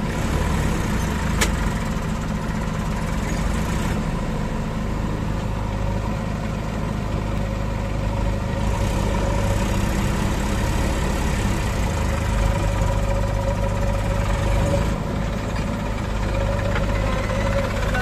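Diesel engines of a JCB 3DX backhoe loader and a Massey Ferguson 241 DI tractor running steadily while the backhoe loads sand into the tractor's trolley. There is a brief click about a second and a half in.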